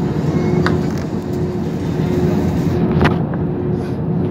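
Airbus A320 engine and cabin noise: a steady drone with a steady hum running through it as the airliner moves along the ground. Two brief sharp knocks, about a second in and about three seconds in.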